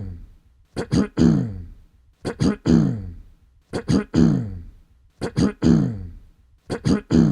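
A person clearing their throat, repeated at even intervals about every second and a half, about five times. Each one is two short sharp catches followed by a longer voiced "ahem" that falls in pitch.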